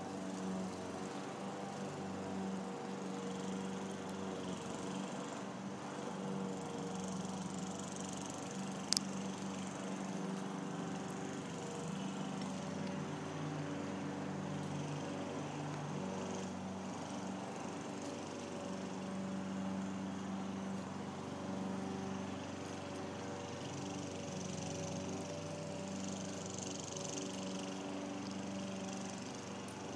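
Steady drone of a small motor running, with one sharp click about nine seconds in.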